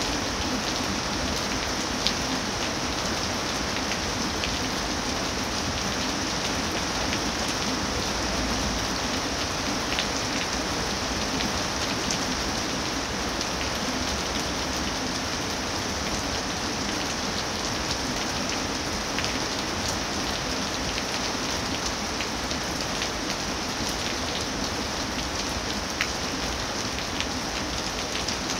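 Steady rain falling on leafy trees, with scattered sharper drops striking close by.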